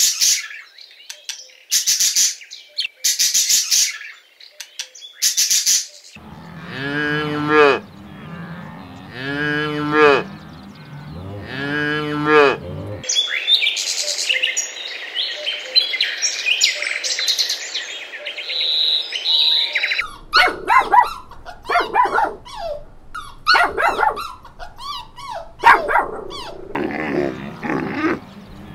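Macaw squawking in short, harsh bursts. Then an animal gives three long, drawn-out lowing calls, followed by birds chirping busily, and finally a run of short, uneven sounds.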